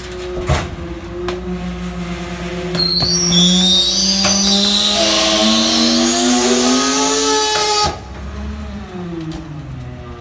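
Loadmaster rear-loader garbage truck running its packer cycle: the diesel engine climbs steadily in pitch under hydraulic load while a loud hiss with high squeals builds over it. About eight seconds in, the hiss cuts off suddenly and the engine slides back down toward idle.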